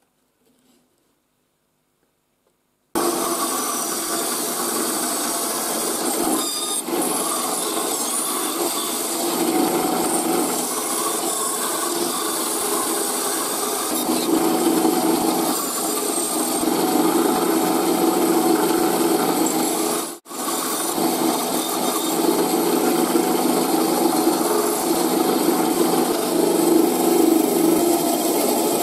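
Power sander running steadily against a glued-up wooden box, sanding it smooth. It starts suddenly about three seconds in and cuts out for a split second about twenty seconds in.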